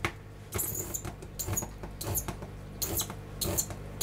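Short squeaky metal-on-metal scrapes at a tin can of green chilies, coming roughly every half second.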